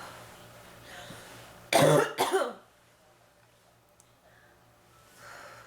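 A woman coughs twice in quick succession, a harsh chest cough from bronchitis.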